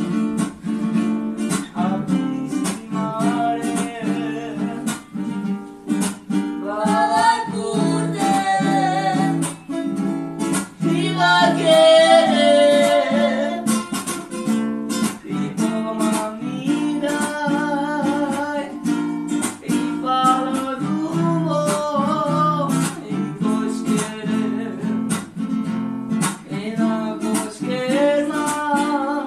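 Acoustic guitar strummed in a steady rhythm, with a male voice singing a wavering melody over it.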